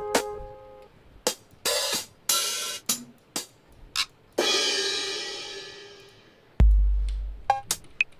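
Electronic drum samples played in a beat: a string of sharp hi-hat hits and open hats of different lengths, with a long open hat or cymbal ringing out for about two seconds from about four seconds in. A deep 808 bass note comes in about six and a half seconds in, and a few short chord stabs sound near the start.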